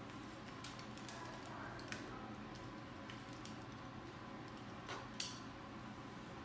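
Faint scattered clicks and light rustles from handling a curling iron and sections of hair, over a steady low room hum. The sharpest click comes a little past five seconds in.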